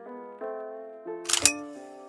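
Background music of sustained piano-like chords, cut across about a second and a half in by a short, sharp metallic clack, typical of a Mauser-type rifle bolt being worked.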